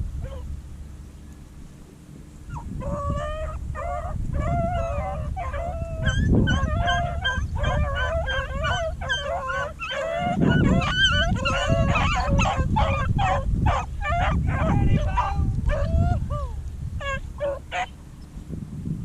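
A pack of beagles bays on a rabbit's trail: many overlapping yelping, howling calls, signalling that the dogs are running the rabbit. The calls start about two and a half seconds in, are densest in the middle, and thin out near the end.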